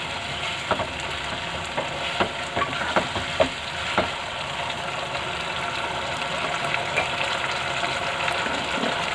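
Sauce with onions and capsicum sizzling in a nonstick kadai while a plastic spoon stirs it, with a few scrapes and taps against the pan in the first four seconds, then steady sizzling.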